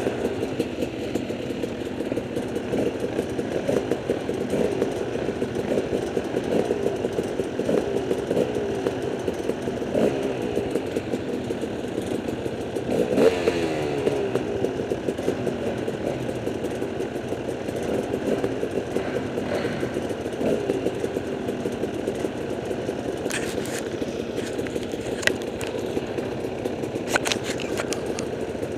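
Several dirt-bike engines idling and revving together, their pitches rising and falling over one another, with one louder rev about halfway through. A few sharp clicks near the end.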